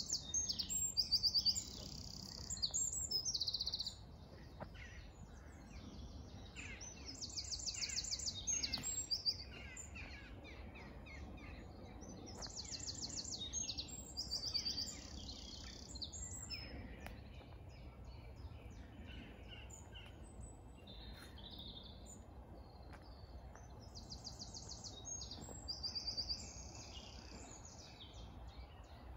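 Songbirds singing: one bird repeats a short, fast, high trilling phrase every few seconds, the loudest near the start and about eight seconds in, while other birds chirp more faintly between.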